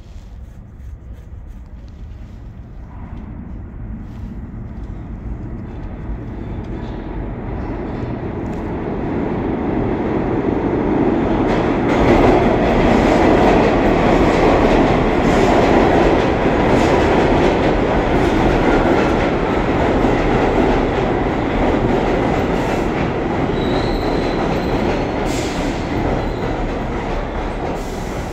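An R62A subway train on the 6 local pulling into an underground station: its rumble and wheel clatter build over the first ten seconds or so and then run loud and steady, with a couple of brief high squeals near the end as it slows to a stop.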